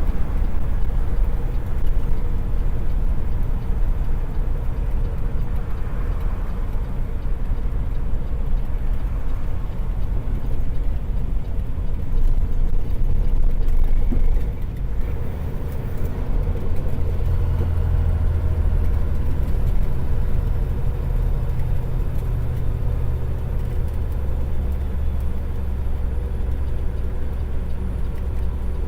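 Semi truck's Cummins ISX diesel engine running at road speed, a steady low rumble with road noise. The loudness dips briefly about halfway through, and the low rumble grows heavier after that.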